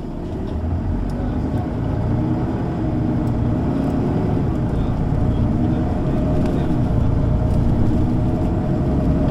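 Mercedes-Benz O 530 G Citaro G articulated bus with a ZF automatic gearbox, its diesel engine pulling away and working harder, growing louder. The engine note rises and dips in pitch as the bus picks up speed.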